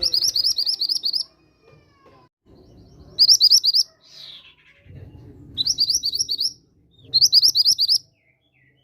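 Mantenan gunung songbird singing four short, loud bursts of rapid repeated chirping notes, about ten a second, with pauses between them. A faint low rumble of background noise runs between the songs.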